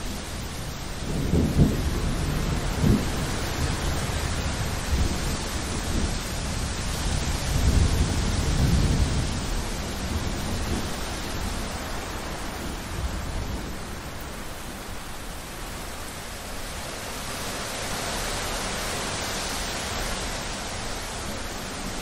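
Thunderstorm: steady rain with rolling thunder. A rumble with a couple of sharp cracks comes about a second in, and a second rumble comes around eight seconds in, before the rain carries on alone.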